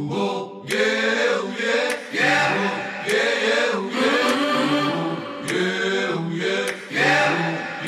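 Background music: a song with chanted, choir-like vocals in repeated phrases about a second long.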